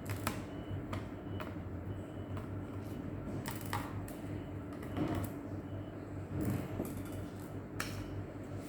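Hands handling a laptop and its packaging: scattered light clicks and taps over a steady low hum.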